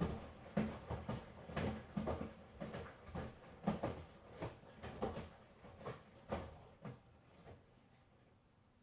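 Miele washing machine drum turning, the laundry tumbling with a rhythmic thud and slosh about twice a second. The thuds weaken and stop about seven and a half seconds in, as the drum comes to rest between turns.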